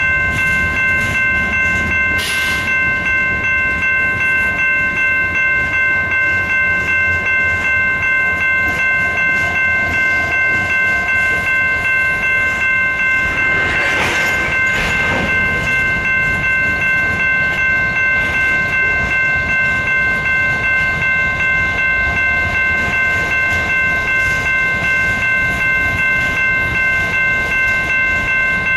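Freight train of covered hopper cars rolling steadily past, with wheel rumble and noise on the rails. A grade-crossing bell rings steadily with a regular beat throughout, and the wheel noise swells briefly about halfway through.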